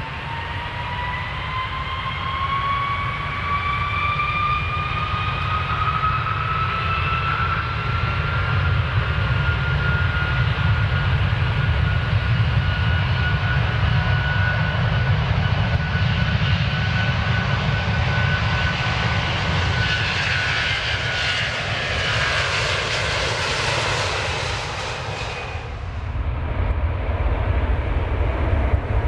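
Airplane engines spooling up for takeoff: a whine climbs in pitch over the first several seconds and then holds steady over a low rumble. Later a louder rushing noise builds and cuts off suddenly a few seconds before the end, leaving the low rumble.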